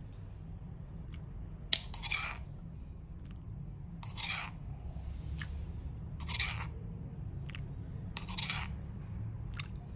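Metal spoon clicking and scraping against bowls: a short click, then a longer scrape, repeating about every two seconds, with one sharp click just under two seconds in. Spoonfuls of the sugar, fish sauce and soy sauce mixture are being ladled into a glass bowl of dipping sauce.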